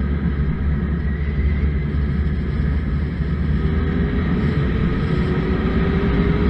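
Suzuki Bandit 1200 motorcycle under way: wind rushing over the camera microphone, with the inline-four engine's steady drone underneath, its pitch rising slightly in the second half.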